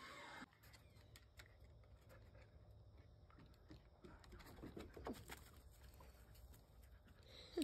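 Near silence: faint background with scattered light clicks and a couple of faint brief sounds about five seconds in.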